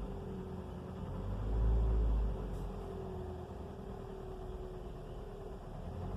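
2004 Toyota Corolla engine running, with a steady tone that wavers up and down and a brief rev about a second and a half in. This is the unexplained engine noise that rises and falls with the throttle and has persisted despite a full rebuild with new pistons, timing chain, chain tensioner and VVT valve.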